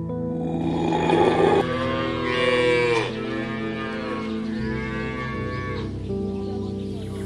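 Highland cow mooing twice in long drawn-out calls, the first about two seconds in and the second near five seconds, preceded by a loud rough breathy rush, over soft background music.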